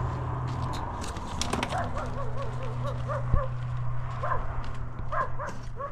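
A dog whining in runs of short rising-and-falling yelps, with footsteps crunching on stony ground and a steady low hum underneath; one sharp knock about three seconds in.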